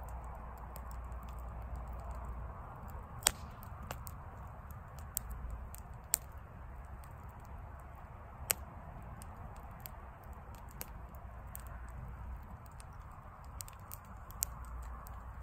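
Wood campfire crackling: a steady hiss of burning with many small crackles and a few sharp, loud pops scattered through.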